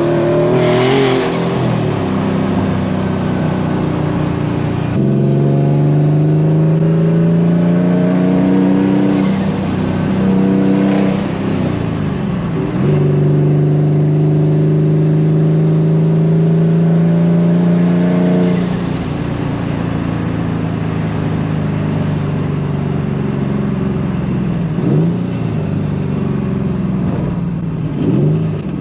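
Turbocharged Nissan S15 Silvia accelerating through the gears: the engine note climbs steadily, drops back at each upshift about 5, 10 and 13 seconds in, then pulls again before settling to a steady cruise a little past halfway.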